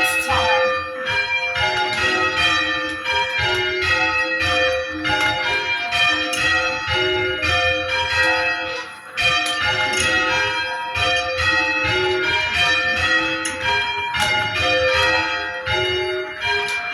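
Church tower bells being change-rung: a continuous, evenly paced succession of bell strikes, each one ringing on into the next.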